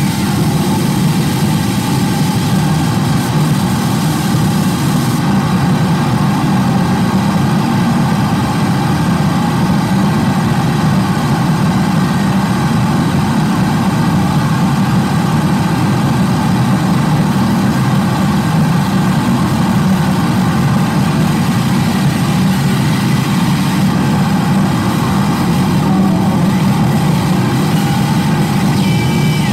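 Live harsh noise music from electronics and effects pedals: a dense, unbroken wall of rumbling distorted noise, heaviest in the low range, holding at a constant loud level. A faint high tone enters near the end.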